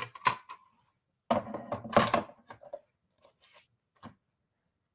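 Thin metal cutting die and cut foil card stock being handled and set down on a craft mat: a few sharp clicks at the start, a busier patch of taps and paper rustle about a second in, and a single tap near the end.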